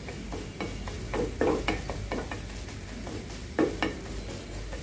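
A slotted spatula scrapes and chops at scrambled eggs in a hot black iron frying pan, breaking them into small crumbles, over a light sizzle. The strokes are irregular, with louder ones about a second and a half in and near four seconds in.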